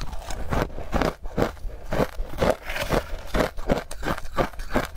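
Crunchy chewing of frozen ice dusted with matcha powder: a quick, even run of crunches, several a second, lighter for about a second near the start.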